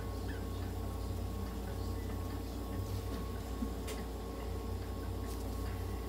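Steady machine hum from the inhalation-therapy equipment filling the cat's cage with mist, with a few faint clicks.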